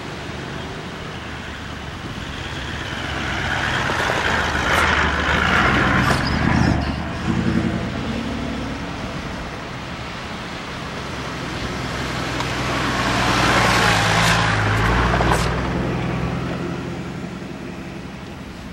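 Two four-wheel-drive vehicles drive past one after the other on a sandy track, the engine and tyre sound swelling as each goes by, about five seconds in and again about fourteen seconds in. A few knocks and rattles come from each vehicle as it passes.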